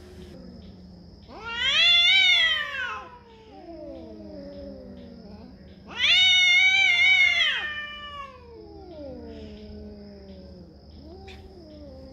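Cats yowling at each other in a close face-off: two long, loud, wavering yowls, about a second in and about six seconds in, each sliding down into a low moan, with quieter low moaning calls between and after them.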